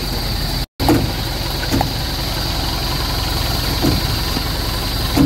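Safari ride vehicle's engine idling steadily, with a few soft knocks. The sound drops out for a moment just under a second in.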